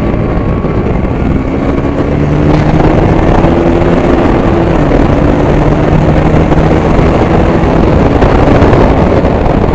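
KTM Duke 200's single-cylinder engine pulling hard under acceleration, its pitch climbing for the first few seconds, dipping slightly about five seconds in, then holding steady, under loud wind rush on the microphone.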